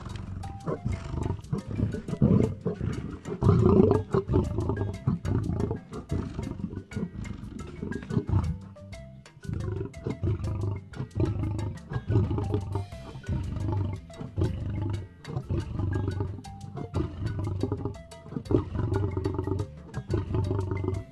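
Lion roaring, loudest a few seconds in, over background music.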